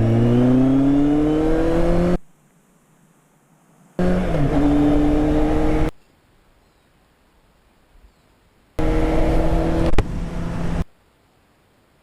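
Motorcycle engine with an aftermarket exhaust accelerating hard, heard in three separate bursts of about two seconds each, each rising in pitch and then holding. Each burst starts and stops abruptly.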